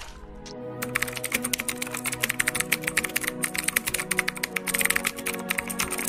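Typing sound effect: a rapid run of keyboard clicks that starts about a second in, over background music with steady held tones.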